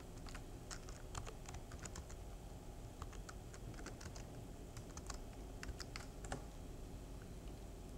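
Typing on a computer keyboard: faint, irregular key clicks that thin out near the end, over a low steady hum.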